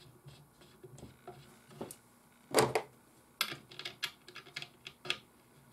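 Small metal clicks and taps as a screw is fitted by hand into the joint between the light arm and the metal stand arm of a stencil-exposure light stand, with one louder knock about two and a half seconds in and a quick run of clicks after it.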